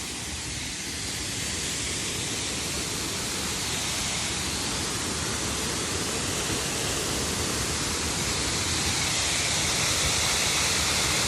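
Waterfall: a steady rush of falling water that slowly grows louder and is loudest near the end.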